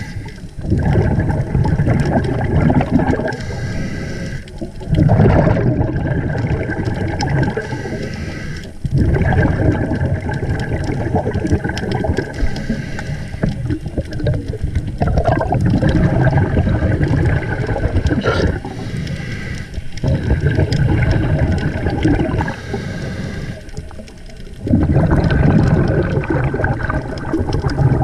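A scuba diver breathing through a regulator, heard underwater: exhaled air bubbles out in long rushing bursts, broken by short pauses between breaths about every four to five seconds.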